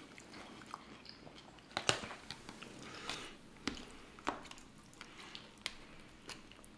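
Close-miked eating sounds: biting and chewing fried chicken wings, with scattered sharp crunches and small clicks, the sharpest a little under two seconds in.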